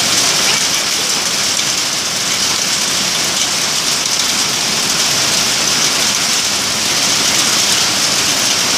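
Hail and heavy rain pelting down in a dense, steady hiss.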